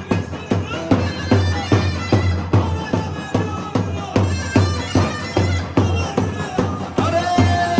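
Zurna (Kurdish double-reed shawm) playing a loud, reedy dance tune through a microphone, over a steady drum beat of about two and a half strokes a second.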